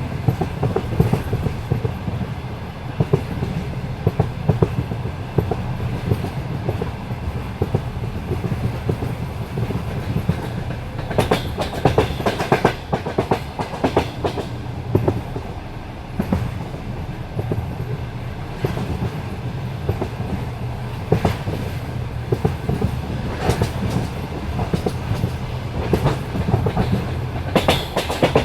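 Passenger train coaches running along the line, steel wheels clacking over the rail joints above a steady low rumble. The clatter grows denser and louder about eleven seconds in and again near the end.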